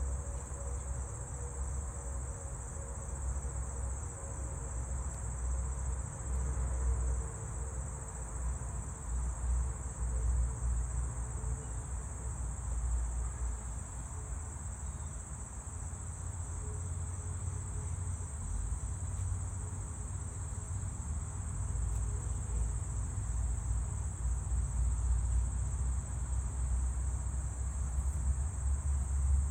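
Steady, high-pitched chorus of insects, a continuous pulsing trill, over a low rumble.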